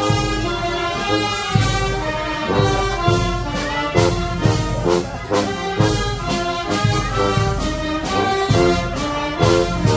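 Live brass band playing lively dance music: saxophone, clarinets and trumpets carrying the tune over a bass drum and cymbals keeping a steady beat.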